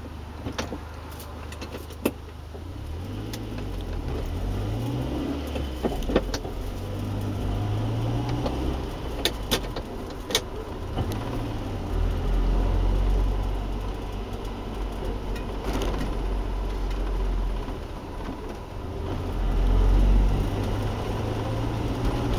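Engine and road noise of a 1999-model car, heard from inside the cabin as it moves off from a stop and drives on. The engine pitch rises and falls several times as it accelerates, with a few sharp clicks scattered through.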